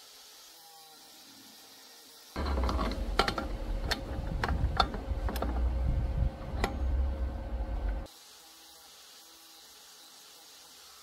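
Metal parts and tools handled at a workbench, knocking and clicking sharply several times over about six seconds, starting and stopping abruptly.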